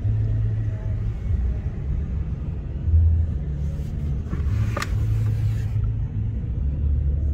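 Low road and engine rumble heard inside a moving pickup truck's cab. Near the middle there is a brief hiss with a single sharp click.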